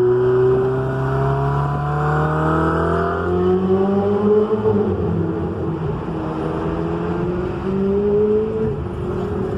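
Ferrari 488 Spider's twin-turbo V8 engine accelerating hard. Its pitch climbs steadily, dips about halfway through and again near the end, then climbs again.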